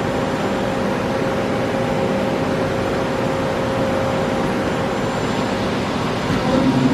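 Okuma Crown CNC lathe running under power: a steady mechanical hum and hiss with a whine that fades out about five seconds in.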